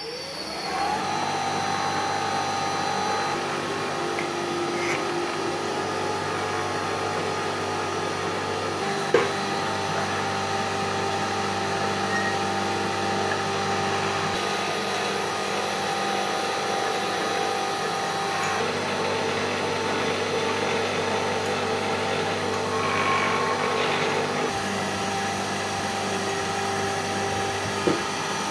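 Electric cold-forging roller machine spinning up to speed, then running with a steady hum as its grooved rollers press a vine-like pattern into a round steel bar. A sharp knock comes about nine seconds in and another near the end.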